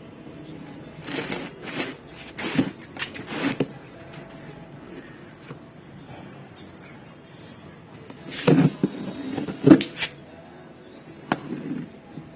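Cardboard shipping box being cut and torn open: irregular bursts of scraping and tearing, one cluster about a second in, another around eight to ten seconds, and a short one near the end.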